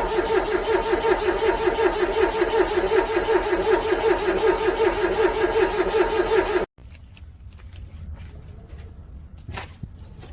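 Cold car engine cranking on the starter motor, a steady rhythmic churning that does not catch, cut off abruptly about six and a half seconds in. After it, faint clicks and one sharper click near the end.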